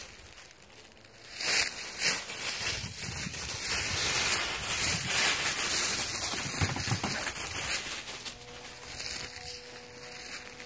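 Dry fallen leaves crunching and rustling in uneven bursts as feet move through them. The crunching is loudest through the middle and quieter near the end.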